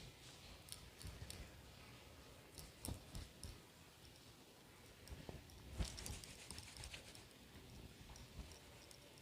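Wet hair being shaken and flicked dry by hand, giving faint, scattered soft slaps and clicks, the sharpest about six seconds in.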